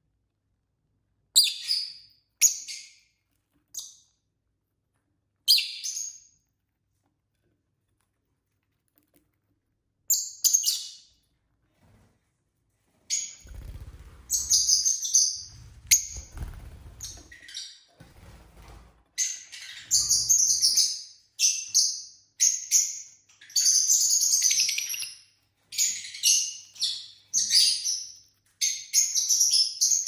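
Pet lovebirds chirping: a few short, sharp chirps with silent gaps at first, then from about halfway a near-continuous run of overlapping chirps. Low thuds sound beneath the chirps for a few seconds around the middle.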